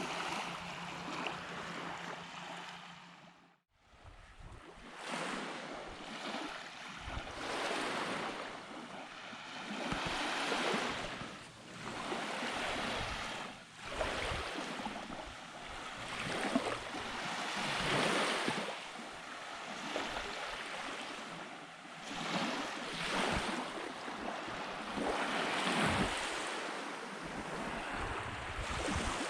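Surf washing onto the beach, swelling and fading every few seconds, with wind buffeting the microphone. A low steady hum at the start cuts out about three and a half seconds in.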